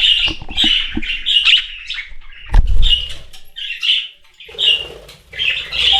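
Budgerigar chirping in a run of short, rapid high calls, with a loud low thump about two and a half seconds in.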